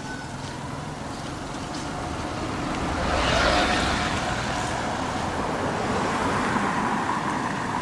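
A road vehicle's engine and tyres passing close by, the noise swelling to a peak about three seconds in and then settling to a steady lower level.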